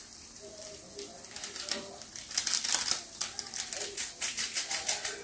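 Small foil noodle-seasoning sachets crinkling as they are handled and shaken out over a pan. It is a quick run of dry crackles that thickens from about two seconds in.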